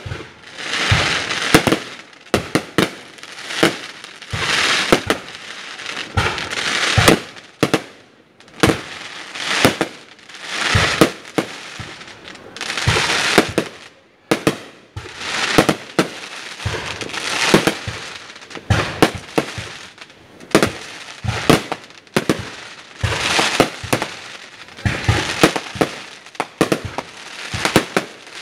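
Aerial fireworks display: a rapid, irregular run of sharp bangs from bursting shells, mixed with hissing bursts about a second long every couple of seconds.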